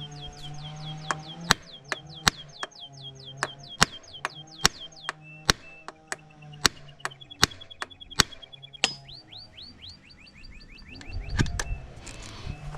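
Background music with a steady beat of sharp clicks, high repeating chirping notes and a held low tone. Near the end, a short noisy burst of handling sound.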